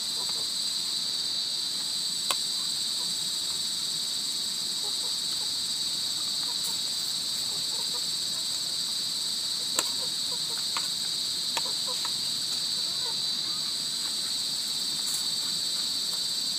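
Steady, high-pitched chorus of insects shrilling without a break. A few short sharp clicks sound over it, the loudest about two seconds in and near the middle, along with small eating noises.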